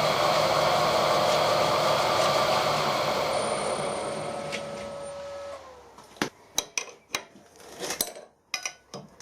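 Milling machine cutting out a broken stud in an aluminium part with a carbide milling cutter. The cutting noise fades over a few seconds, and the spindle runs down with a falling whine about five and a half seconds in. A series of sharp metallic clinks follows.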